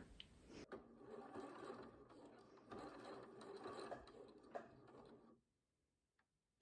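Domestic electric sewing machine running faintly, sewing a few straight stitches forward and back to join the overlapped ends of an elastic band into a ring. It stops about five seconds in.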